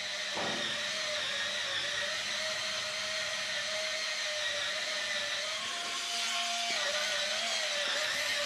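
Cordless electric spin scrubber running, its motor spinning a round brush head with a steady whine that wavers slightly in pitch.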